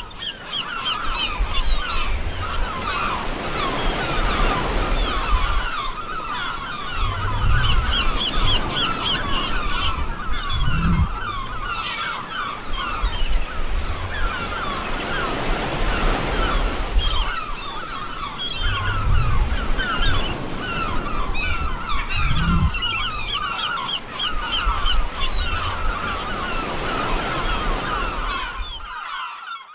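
Sea waves breaking and washing up a sandy beach, surging every few seconds, with a flock of birds calling constantly over the surf. It cuts off abruptly near the end.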